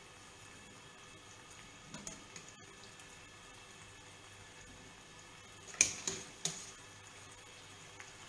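Wire-mesh skimmer clinking against the steel pot and the frying pan while boiled gnocchi are scooped out of the water and dropped into the sauce: a couple of faint knocks about two seconds in, then three sharp metal clinks in quick succession about six seconds in, over a low steady background of the pots on the stove.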